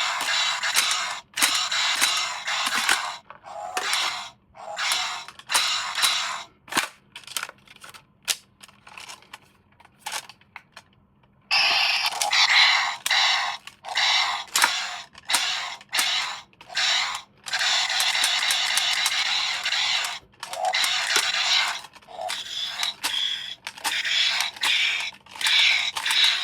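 Crinkling and scraping of toy packaging being handled, in dense stretches with a quieter middle part of short separate crackles.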